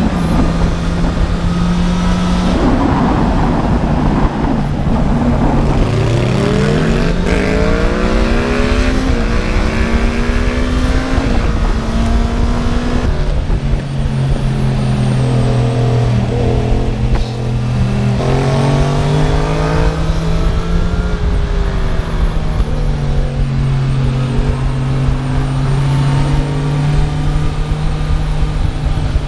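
Honda CB650R's inline-four engine, restricted to 35 kW for the A2 licence, heard from the rider's seat as it accelerates and eases off between bends. Its pitch climbs twice and drops back in between, over steady wind rushing past.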